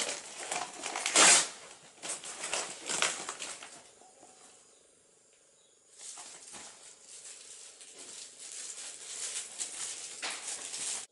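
Gift wrapping paper and plastic toy packaging rustling and crinkling as a present is unwrapped and handled, loudest about a second in, with a short lull around four seconds before the crinkling picks up again.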